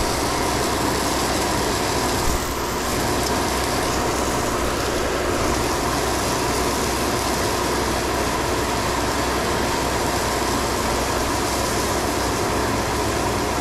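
Stone slinger truck running steadily, its conveyor throwing a continuous stream of 3/4-inch crushed stone that lands on the gravel pile.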